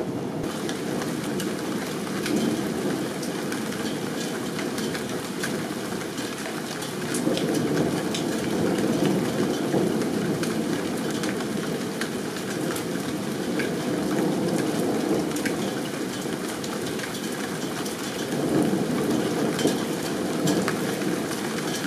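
Steady heavy rain falling during a thunderstorm, with many sharp drops ticking on nearby surfaces. A low rumble of thunder swells up about a third of the way in and again near the end.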